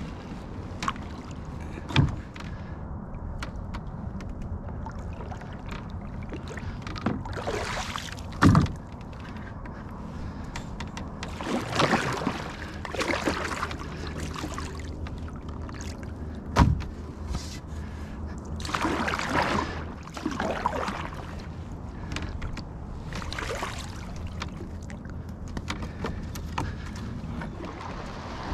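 Paddling a canoe: a wooden paddle swishes and splashes through the water in strokes every few seconds. Three sharp knocks, the loudest sounds, come from the paddle striking the canoe's side.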